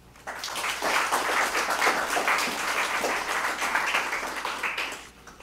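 Audience applauding, starting abruptly and fading out after about five seconds.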